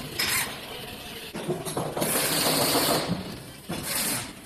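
Power drill-driver with a screwdriver bit running for about a second, backing out the screw that holds an electric scooter's plastic folding-stem hook clip, after a brief blip at the start. Near the end comes a short scrape as the plastic clip is worked off the stem tube.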